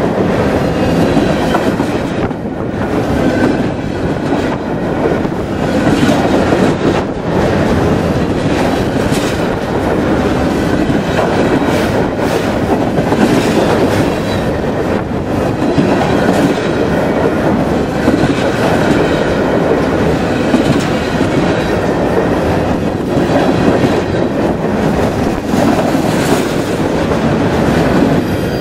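A long freight train of container-laden cars rolling past close by: a steady rumble of steel wheels on rail with clickety-clack over the rail joints. The last car passes at the very end and the sound starts to fade.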